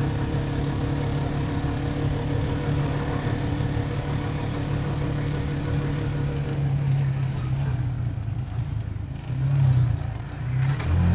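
Motorcycle engine running steadily while riding along a paver road, with wind and road noise. About nine seconds in the engine note dips and changes pitch, as when the rider eases off and speeds up again.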